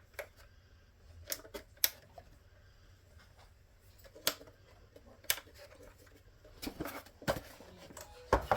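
Small plastic parts clicking and tapping irregularly as the map light switch and its loose push button are handled and fitted together.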